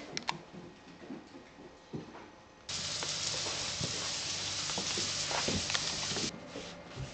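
Audio picked up by a camera on a cat's collar: a few sharp clicks and soft knocks as the cat goes down stairs, then a steady hiss with faint low thumps as it walks, which starts and cuts off suddenly.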